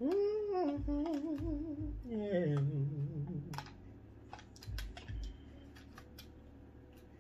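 A man hums a wavering, sung tune for about three and a half seconds. Then come a series of small sharp clicks and crackles as he picks at and pries the lid off a plastic dipping-sauce cup.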